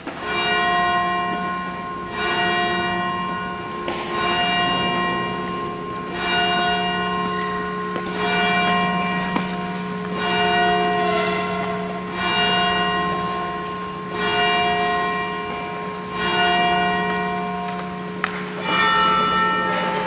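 Church bell tolling, about one stroke every two seconds, each stroke ringing on and fading before the next; near the end the strikes sound at a different pitch.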